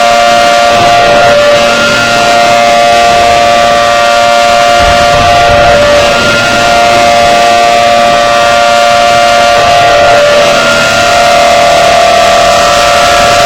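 Outdoor warning siren sounding a loud, steady tone made of several pitches at once, swelling and dipping slightly about every four seconds.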